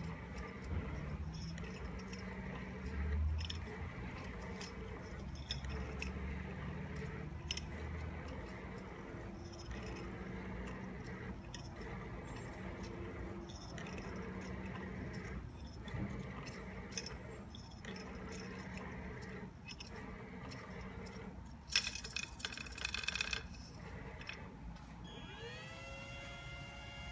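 Motors of a homemade CNC painting machine whirring and clicking as the gantry carries the brush across the board. Near the end there is a brief louder rattle, then a motor whine rises in pitch and settles into a steady tone as it spins up.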